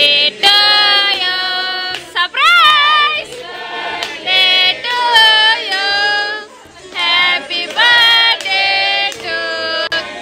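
A high, clear singing voice in short phrases with wavering pitch, most likely part of a song laid over the video as music.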